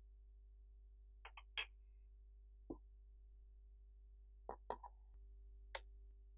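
Scattered small clicks and taps of a Panasonic Lumix GH4 camera body and lens being handled while the lens is lined up and twisted onto the mount. The sharpest, loudest click comes near the end.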